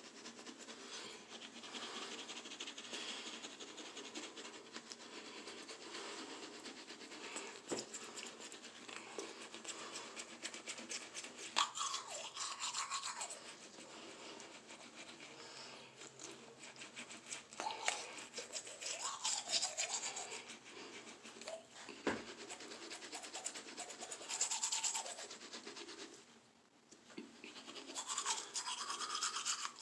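Manual toothbrush scrubbing teeth: continuous scratchy, uneven brushing with a short pause near the end.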